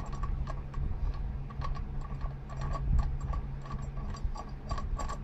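Ratchet wrench clicking in quick, uneven runs as it turns down the bolt of a valve spring compressor, compressing a valve spring.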